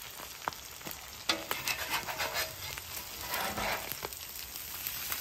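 Ground beef and cheese sizzling on a Blackstone flat-top griddle. From about a second in, a metal spatula scrapes and clicks across the steel griddle top several times as it slides under the sandwich.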